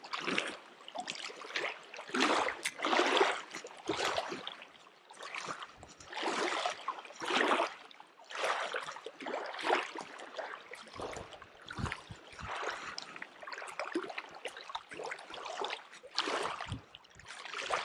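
Small waves lapping and splashing against a gravel shoreline, an irregular splash about every second.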